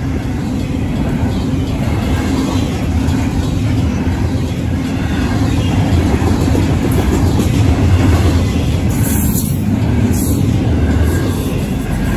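Freight train of double-stack container cars and a covered hopper rolling past at close range: a steady rumble of steel wheels on the rails.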